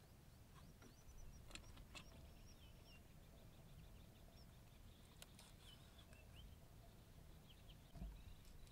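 Near silence: faint outdoor ambience with small birds chirping now and then, and a few soft clicks as small fish are pushed onto a bamboo skewer.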